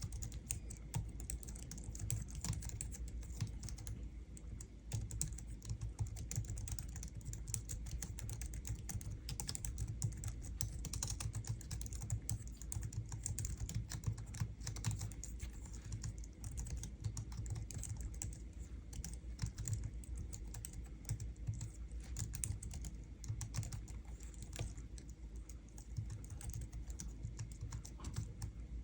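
Continuous fast typing on a Logitech MX Keys, a low-profile scissor-switch office keyboard: soft, quick key clicks with no pauses.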